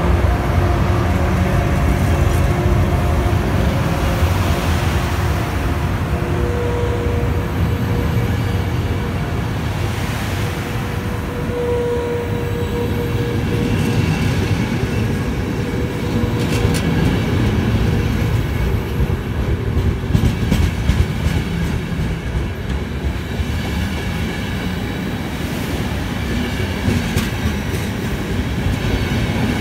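Frecciabianca passenger train, an E414 electric locomotive and its coaches, rolling past: a steady low rumble of wheels on rail with clicks over the rail joints. A squeal rises and fades about a third of the way in.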